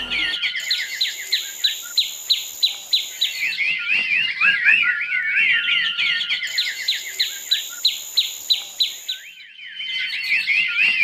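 Birds chirping and tweeting in quick repeated high notes and trills, which dip briefly about nine seconds in and then pick up again.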